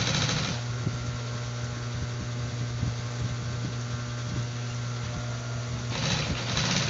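Industrial sewing machine with its motor humming steadily, breaking into short runs of stitching at the start and again about six seconds in.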